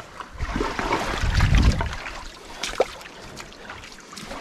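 Handling and movement noise as a frying pan is picked up off the rocks, with a few light knocks and a low rumble about a second in, over water washing on the shore.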